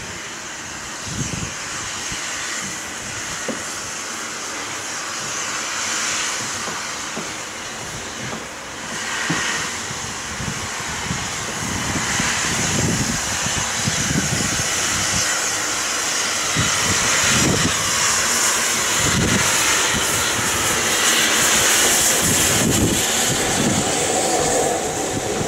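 Steam locomotive starting away slowly with its cylinder drain cocks open: a loud steady hiss of escaping steam, with slow exhaust chuffs a second or two apart. It grows louder as the engine draws near and passes underneath.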